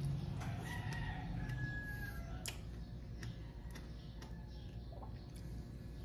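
A rooster crows once, starting about half a second in and lasting nearly two seconds. Several sharp clicks follow, over a steady low hum.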